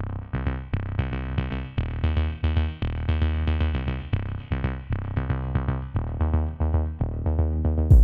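Electronic background music with a steady drum-machine beat and a deep bass line.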